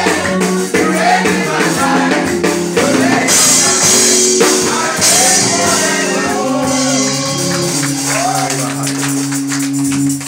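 Congregation singing a gospel praise chorus, led by a voice on a microphone, with a tambourine shaking along. A bright jingling wash rises over the singing for a couple of seconds near the middle.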